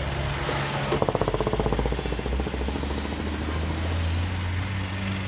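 City bus engine idling with a steady low drone. About a second in, a loud fast rattle starts sharply and dies away over a second or so.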